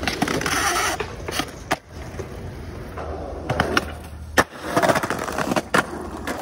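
Skateboard wheels rolling on concrete and pavement, broken by several sharp clacks of the board popping and landing tricks, the loudest a little over four seconds in.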